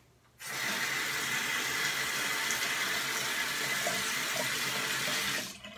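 Bathroom tap running into a sink, a steady rush of water that starts about half a second in and is shut off abruptly near the end.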